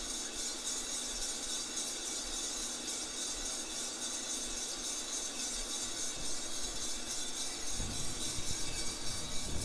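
Feima 100n drum coffee roaster running early in the roast, just after the beans were charged: a steady rushing hiss from its fan with the green beans tumbling and clinking in the turning drum. A low rumble joins near the end.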